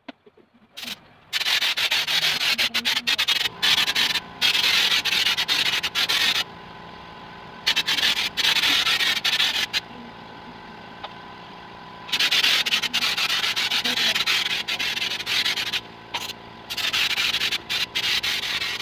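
Compressed-air texture spray gun hissing in long bursts of several seconds with short pauses, spraying a thick Flexibond-and-cement texture coat. A quieter steady hum continues in the pauses.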